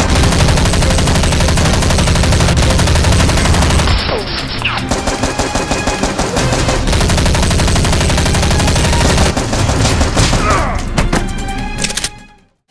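Rapid, sustained machine-gun fire as a dubbed battle sound effect, dense volleys with a little music underneath, cutting off suddenly just before the end.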